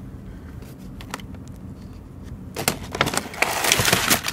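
Plastic food packaging rustling and crinkling as hands rummage through a bin of wrapped food trays and bags, starting about two and a half seconds in and loudest near the end. Underneath is a low steady hum.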